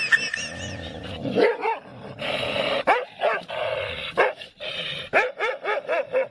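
A dog barking over and over in short, quick barks, several a second toward the end.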